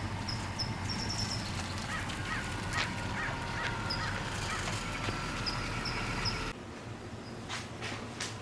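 Birds calling repeatedly in short high chirps, with a run of harsher lower calls, over a low steady rumble. The rumble drops away suddenly about six and a half seconds in.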